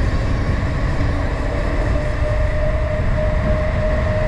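Wind rushing over the microphone while riding a bicycle downhill, a loud steady rumble, with a steady hum that slowly rises in pitch.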